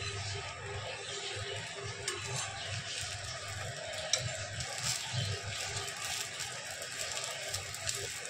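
Semolina pancake batter sizzling in a hot pan with a steady hiss, while a spatula scrapes and taps against the pan a few times as it loosens the pancake. A low hum runs underneath.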